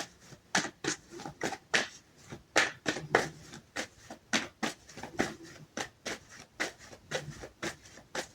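A tarot deck being shuffled by hand: an irregular run of short card snaps and slaps, a few each second.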